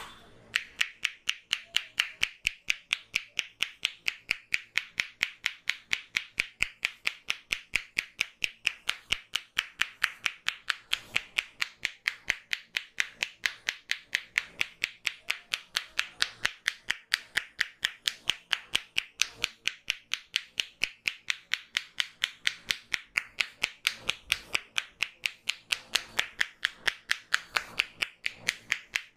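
Barber's hands striking the head in a percussive head massage: a fast, even run of sharp claps, about three to four a second.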